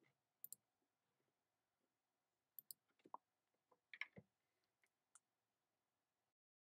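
Faint computer mouse clicks, a dozen or so, several in quick pairs, as images are selected on screen.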